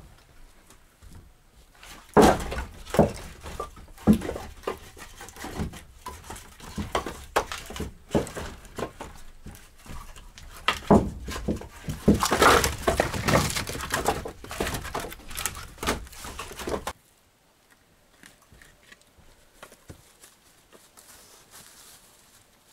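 A run of irregular knocks, thumps and rustling handling sounds that stops abruptly about seventeen seconds in, leaving only faint room sound.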